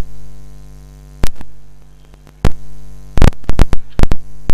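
Steady electrical mains hum from the recording chain, broken by loud, sharp clicks: one at a time twice, then a rapid run of them in the last second and a half.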